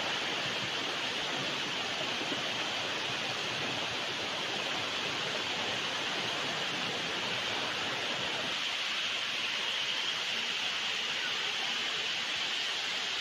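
Waterfall and the rocky stream below it, a steady rushing of falling water that holds level throughout; the deeper part of the rush thins a little about two-thirds of the way through.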